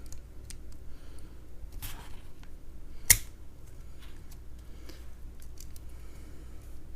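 Small metallic clicks and scraping of tools working on a Brinks R60 discus padlock as it is taken apart, with one sharp click about three seconds in, the loudest sound.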